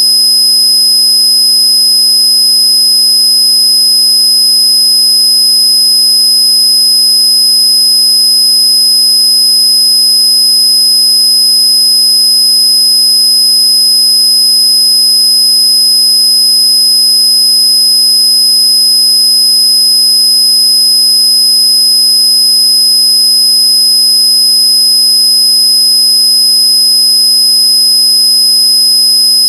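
Loud, unchanging electronic tone: a low buzz with a piercing high whistle on top, a synthetic noise track meant to be played against noisy neighbours.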